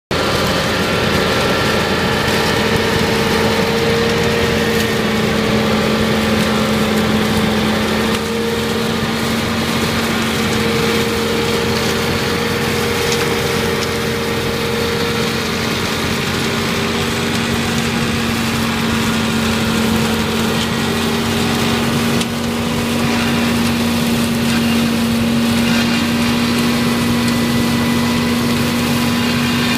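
Compact tractor engine running steadily, driving a 175 cm ONJ hammer-flail mower through the PTO as it cuts tall grass, with a steady hum throughout and two brief small dips in level.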